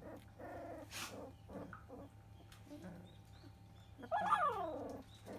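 Two-week-old Labrador retriever puppies whimpering, then one lets out a louder cry that falls in pitch about four seconds in.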